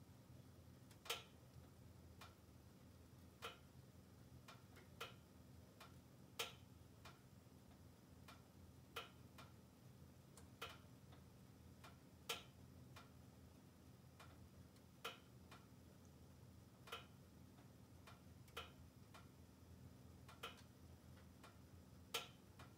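Logs burning in a closed wood-burning stove: faint sharp crackles, one every second or two, over a low steady rumble.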